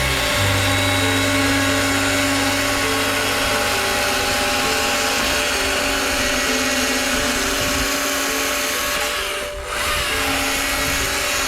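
Handheld power tool running steadily as it carves wood, with a brief let-off about nine and a half seconds in.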